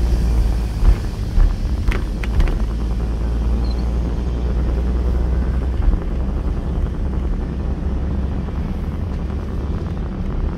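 Steady low rumble of a car driving, heard from inside the cabin, with a few short knocks in the first two and a half seconds.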